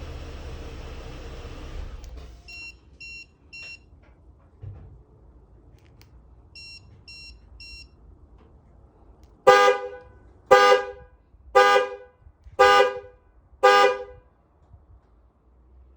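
A 2013 Ford Explorer's running engine shuts off about two seconds in. A chime of three short beeps sounds twice, then the horn honks five times, about a second apart, signalling that the vehicle has entered transmitter learn (key fob programming) mode.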